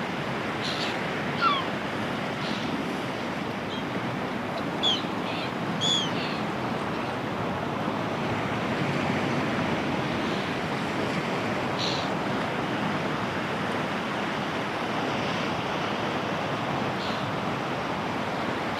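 Sea waves breaking in a steady wash of surf, with a few short seagull calls that fall in pitch in the first six seconds.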